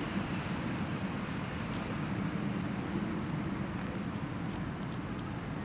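Night insects chirping steadily in several continuous high tones, over a low steady rumble.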